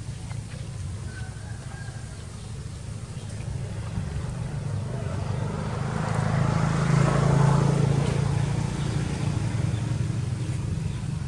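A motor vehicle's engine hum that grows louder to a peak about seven seconds in, then fades as it passes.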